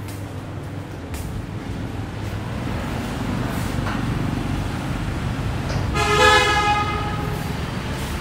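Street traffic from passing motorbikes and cars, a steady low rumble, with a vehicle horn sounding once for about a second, about six seconds in.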